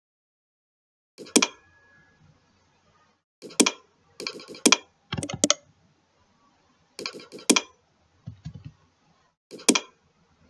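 Computer keyboard typing and mouse clicks, heard as about seven short clusters of sharp clicks with dead silence between them.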